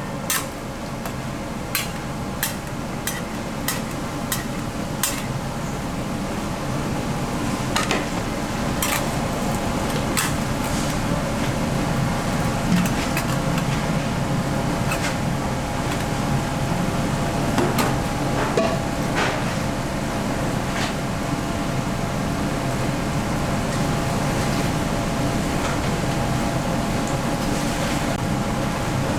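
Steady hum of factory machinery with scattered sharp clicks and taps of a metal rod against a steel cooling table as it works molten candy, many in the first few seconds and a few more around the middle.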